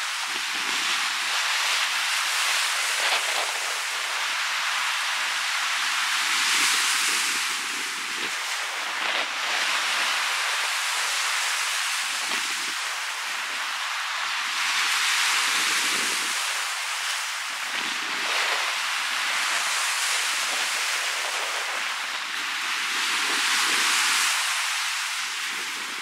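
Lake Huron surf breaking and washing up a sandy beach in a strong wind: a continuous rushing that swells every four to five seconds as each wave comes in.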